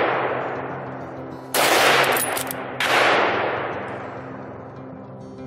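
Two rifle shots about a second and a quarter apart, each ringing out in a long fading echo through the woods. The echo of an earlier shot is still dying away at the start.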